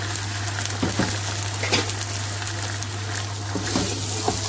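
Raw chicken pieces sizzling in hot oil in a non-stick pan, with a few short knocks from a wooden spatula against the pan as the pieces are turned.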